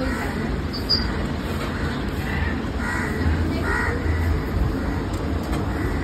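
A crow cawing a few short times in the middle, over a steady low background hum.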